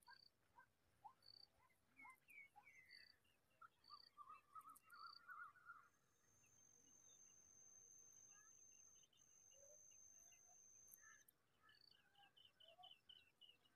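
Faint small-bird calls: a short high note repeated about twice a second, scattered chirps and short trills. Through the middle, an insect's steady high buzz runs for about five seconds with a brief break.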